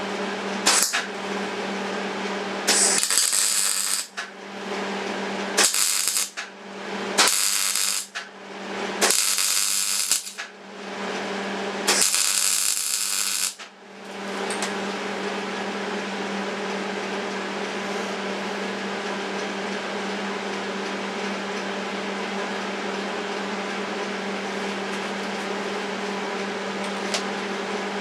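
Electric arc welding on a steel chair frame: about six short runs of crackling hiss in the first half, each up to about a second and a half, the tack welds and short beads being laid. A steady electrical hum runs underneath and carries on alone afterwards.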